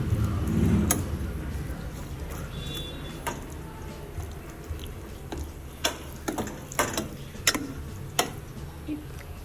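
Boiled elephant yam and Malabar spinach being mashed in a metal pot, with soft squishing and a utensil knocking sharply against the pot several times, most of the knocks coming close together past the middle.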